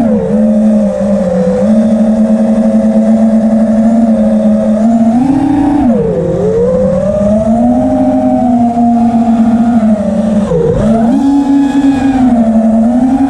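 Electric motors and propellers of a small FPV multirotor drone whining in flight, the pitch rising and falling with the throttle and dipping sharply twice, about six and eleven seconds in.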